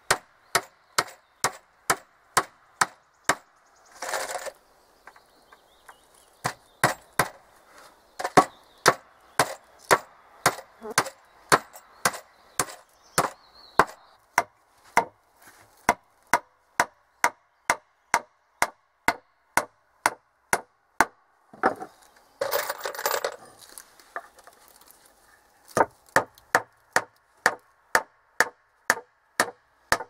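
Hammer driving nails into wooden boards: sharp, regular blows at about two a second, with short pauses between runs. The steady hammering is broken twice by a short harsh noise, once about four seconds in and again for over a second past the twenty-second mark.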